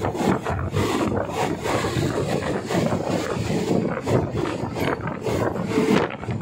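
Diesel passenger train running: a steady rumble with irregular rattling from the carriage, and wind buffeting the microphone.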